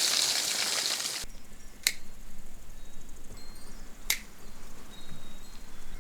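Dry leaves and stalks rustling loudly as weeds are pulled, cutting off abruptly about a second in, followed by two sharp clicks roughly two seconds apart.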